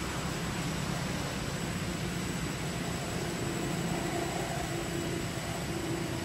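Steady outdoor background noise: a low rumble with a thin, constant high-pitched whine above it and a faint hum coming in about halfway through.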